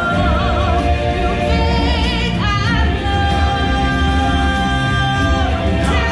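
Stage show music with singing: voices hold long notes with vibrato over a strong bass, and a new sung phrase begins about halfway through.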